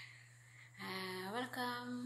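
A woman's voice starts speaking a little under a second in, after a short pause. A steady low hum runs underneath.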